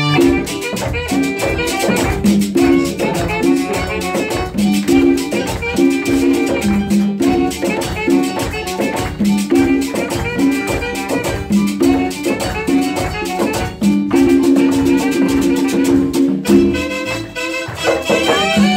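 Live Latin tropical band playing an instrumental passage with no singing: hand percussion and a shaker over a repeating bass line, with keyboard, saxophone and trumpet.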